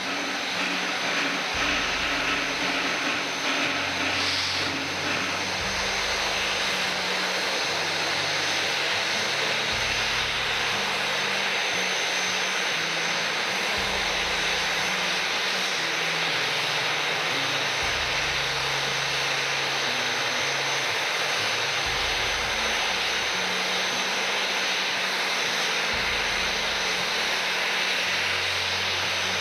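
Background music: a slow, steady synth-style track whose low bass note changes about every four seconds over an even wash of sound.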